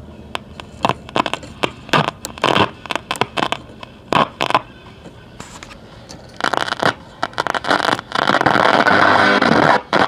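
The speaker of a 1960s General Electric World Monitor multiband transistor radio crackling and cutting in and out in short bursts as its volume control is turned, then a steady loud hiss of reception from about eight seconds in as the dial is tuned. The radio is partly alive.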